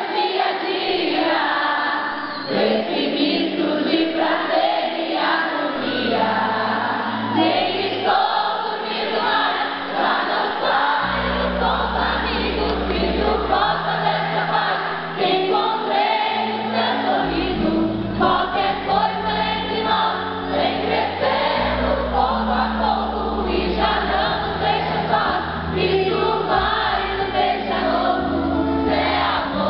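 Live pop song: a woman sings lead into a microphone over a band, heard from the audience. Low bass notes come in about eleven seconds in.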